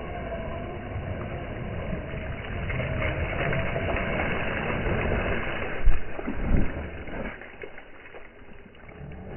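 Radio-controlled basher car driving over rough ground, its motor whining with a wavering pitch, with two loud knocks about six seconds in before the sound drops away.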